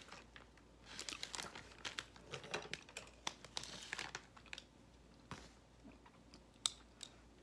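Crinkling of a cookie's packaging along with a crisp raspberry shortbread cookie being bitten and chewed. Dense crackling through the first half, then a few scattered clicks.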